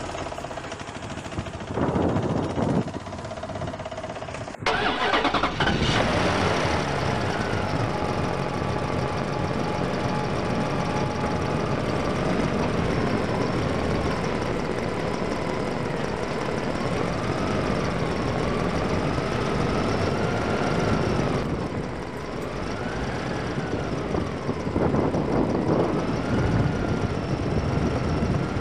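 Vehicle engine sound running steadily, its pitch wavering up and down, with an abrupt change about four and a half seconds in and a louder stretch near the end.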